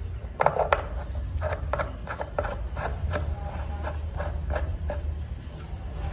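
Plastic screw cap of a small two-stroke engine's fuel tank being turned by hand: a run of short clicks and scrapes, about two or three a second, loudest about half a second in.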